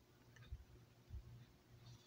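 Near silence: room tone with two faint low bumps and a faint click.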